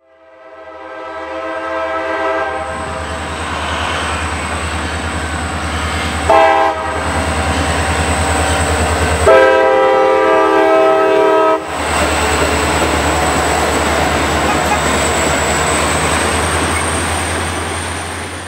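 CSX diesel freight locomotives passing a railroad crossing, the air horn blowing a long blast, a short blast about six seconds in, and another long blast near ten seconds. Under the horn run the steady low rumble of the diesel engines and the rolling noise of the train's wheels.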